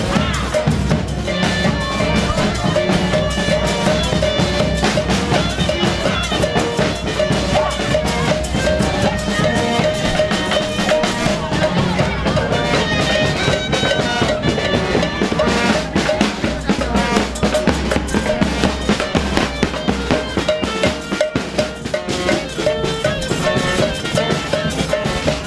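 Parade band playing lively music: drums and cymbals beating a fast, steady rhythm under held melody notes.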